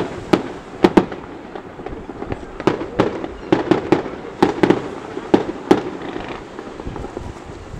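Aerial firework shells bursting overhead: about a dozen sharp bangs in irregular groups, stopping about two seconds before the end.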